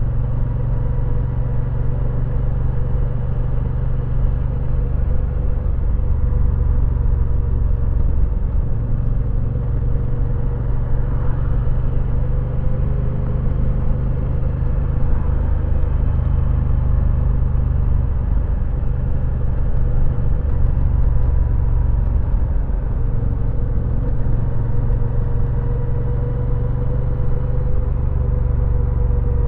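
Moto Guzzi V9 Roamer's air-cooled 853 cc V-twin running steadily under way while the motorcycle cruises along a country road, heard from on board the bike with road and wind noise.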